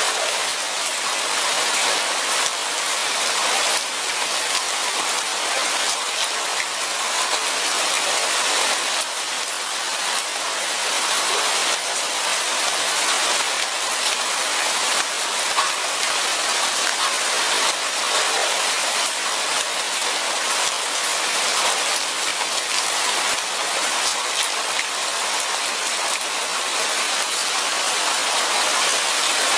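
Light rain falling steadily: an even hiss with a dense patter of many small drops.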